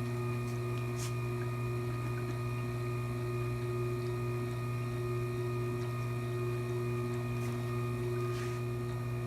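Electric wet-stone wheel sharpener running steadily with its wheel turning, a constant motor hum.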